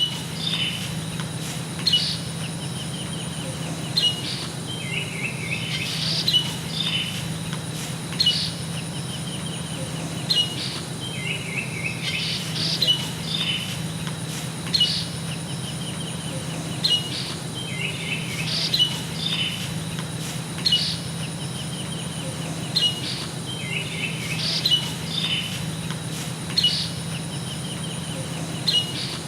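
Forest birds calling: short sharp chirps about every two seconds, with buzzy trilled phrases between them, repeating in an even pattern. A steady high-pitched whine and a low hum run underneath.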